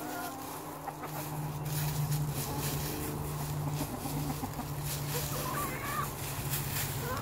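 A flock of chickens clucking while scratching and pecking through dry fallen leaves, with the leaves crackling and rustling under their feet. A few louder clucks come about five seconds in and again near the end, over a steady low hum.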